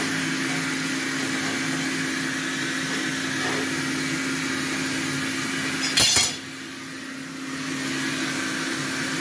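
Steady machine hum with fan hiss from running shop equipment, broken about six seconds in by a short, loud metallic clatter as the cut steel plate is moved on the perforated steel table.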